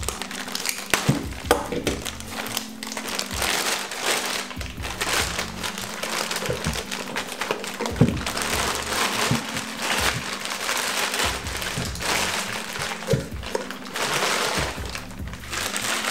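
Clear plastic bag crinkling and rustling as a turbocharger is pulled out and unwrapped by hand, with a few sharper knocks, the strongest about halfway through.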